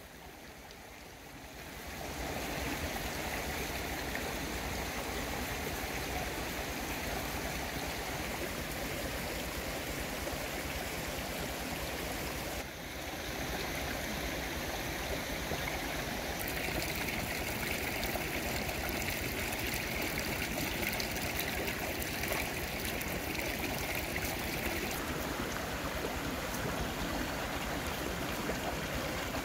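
A shallow rocky stream flowing over stones: a steady rush of water that swells up about two seconds in.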